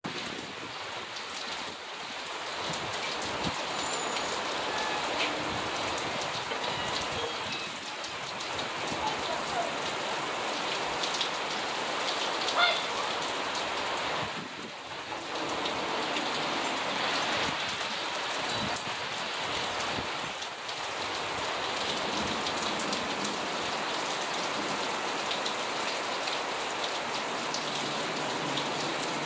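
Steady heavy rain pouring down and drumming on surfaces, with one short sharp tap about twelve seconds in.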